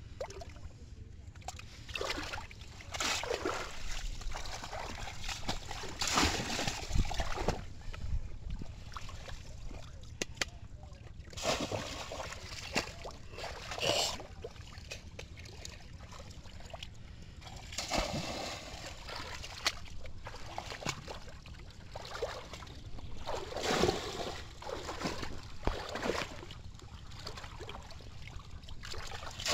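Water splashing and sloshing in irregular bursts every few seconds as a bamboo polo fish trap is plunged down into shallow water and someone wades through it.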